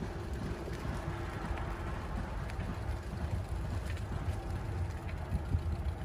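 Wind buffeting the microphone outdoors: a low, gusting rumble that never settles, over a faint steady hiss.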